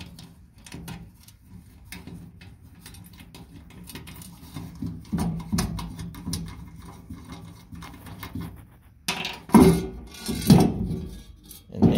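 Faint clicks and light metallic taps of a small chrome valve-stem-cap license plate bolt being handled and worked loose from a sheet-metal plate box. Two louder short voice-like sounds come about ten seconds in.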